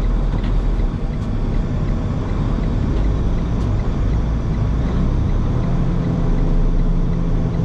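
Semi-truck diesel engine and road noise heard from inside the cab: a steady low drone while driving slowly on snow. About five and a half seconds in, the engine note changes to a steadier, higher hum that holds.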